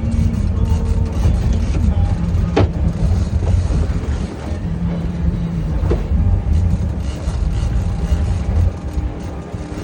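A boat's engine running steadily under way, a dense low rumble, with one sharp knock about two and a half seconds in.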